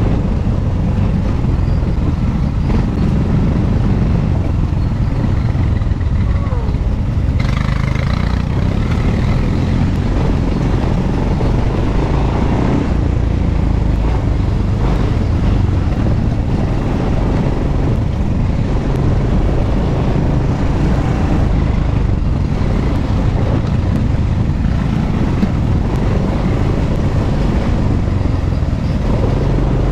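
ATV (quad bike) engine running steadily while riding a rough dirt trail, heard from the rider's seat as a continuous low rumble.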